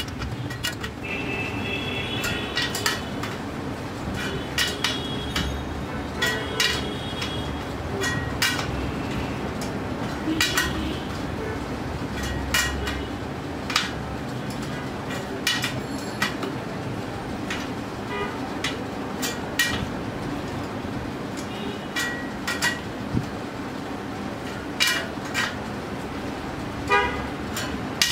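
Street traffic with repeated vehicle horn toots, some short and some held for about a second, over a steady background hum. Scattered sharp clicks run throughout.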